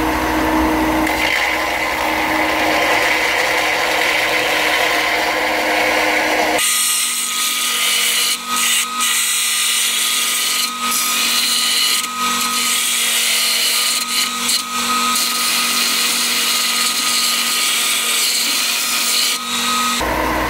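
Belt grinder running with a steel knife blade held against the belt, grinding the blade's profile. It is a steady, loud grinding noise that dips briefly several times in the middle stretch. About a third of the way in, the sound suddenly turns thinner and higher as the low rumble drops out.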